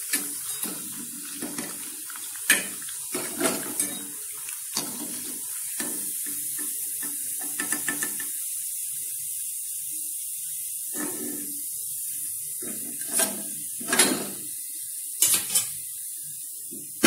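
A metal slotted spoon clinking and scraping against a kadhai and a steel plate as fried chaklis are lifted out of the hot oil, a dozen or so scattered knocks. Under them runs a steady faint sizzle of the frying oil.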